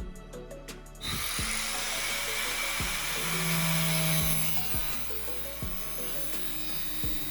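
A small power tool starts about a second in and runs steadily with a dense hissing whir, as when sanding or grinding wood, under background music with a plucked, rhythmic beat.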